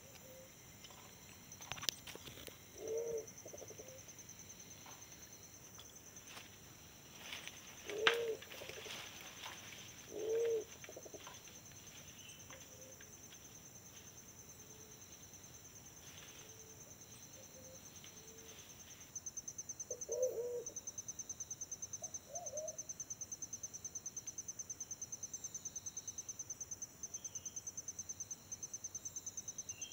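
Pigeons cooing in short low phrases, about five or six times, over a steady high insect trill that becomes a fast, even pulsing about two-thirds of the way through. A few sharp clicks sound near the start.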